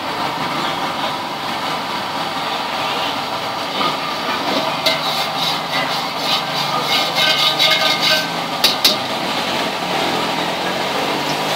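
Busy street-market ambience: a steady hum of traffic and engines, with a run of sharp, irregular knocks and clinks in the middle.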